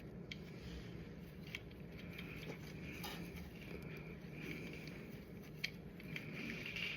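Faint scattered clicks and handling noises of small metal parts being worked by hand, over a low steady hum.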